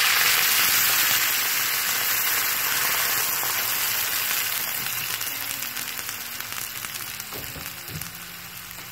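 Vinegar poured into a frying pan of hot oil and vegetables, setting off a loud sizzle that fades steadily over the following seconds.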